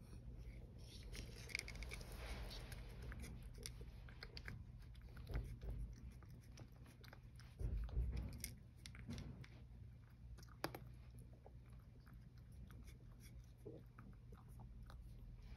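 A cat eating from a small ceramic bowl: faint, irregular chewing and crunching of dry kibble, with small clicks, and a soft bump about eight seconds in.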